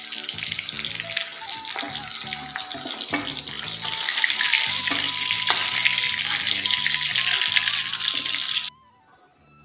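Masala-coated fish pieces sizzling in hot oil in a kadai as they are lifted out with a spatula, over background music. The sizzle grows louder about halfway through and cuts off abruptly near the end.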